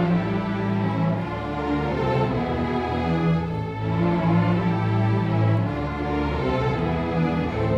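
High school orchestra playing a sustained passage: bowed strings holding full chords over long, steady low notes.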